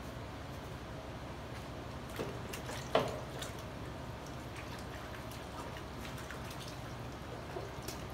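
Paintbrush dipped and worked in a plastic bucket of liquid plaster: small wet splashes and drips, with one louder splash about three seconds in, over a steady low hum.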